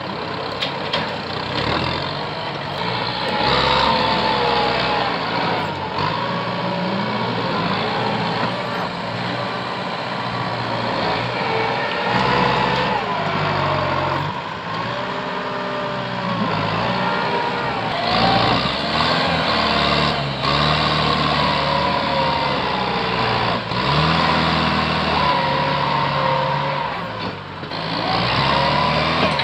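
Kubota tractor's diesel engine working under heavy load, its pitch rising and falling again and again as the front blade shoves through brush and small trees.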